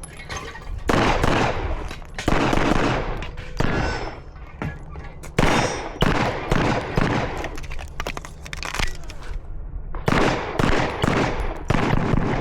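Gunshots fired in rapid strings during an IDPA stage, each string of quick shots separated by short pauses, with the shots echoing.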